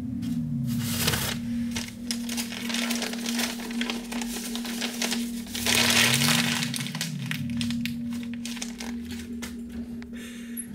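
Sound-design score: a steady low drone with slow sliding low tones beneath it, under dense crackling, static-like noise that swells loudest about six seconds in.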